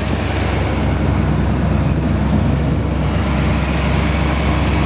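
Chevrolet 350 V8, freshly rebuilt, idling steadily under the open hood of a 1969 Corvette.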